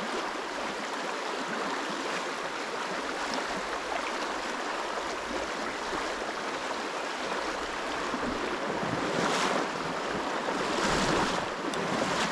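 Fast river current rushing steadily over stones, with a couple of brief louder swells near the end.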